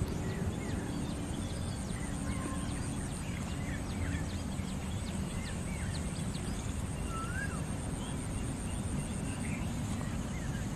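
Many small birds chirping and calling in short rising and falling notes over a steady low rumble of background noise, with a thin steady high tone that stops near the end.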